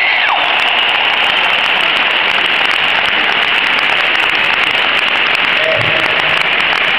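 Large concert crowd applauding and cheering in a dense, even wash of clapping, heard loud through a small camera's microphone.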